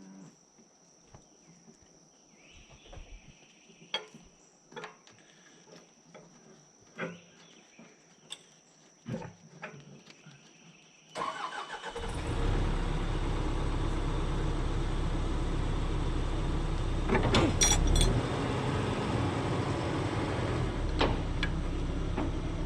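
Scattered light metallic taps and clicks over a steady high-pitched drone. About halfway in, a heavy machine's diesel engine starts up and then runs steadily, with a few clanks partway through.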